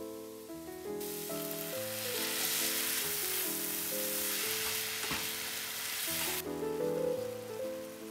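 Onions, carrots and freshly added grated tomato sizzling in a hot frying pan as they are stirred. The sizzle starts about a second in and cuts off about six seconds in, over background music.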